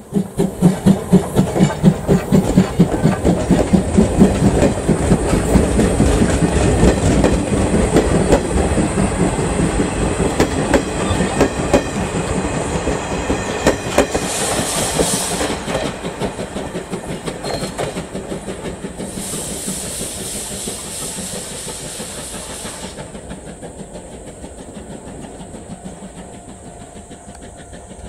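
C11-class steam tank locomotive C11 325 pulling its train past: rhythmic exhaust beats and wheel clatter, loudest for the first few seconds, then fading as the coaches roll by and the train moves away. Hissing comes twice in the middle.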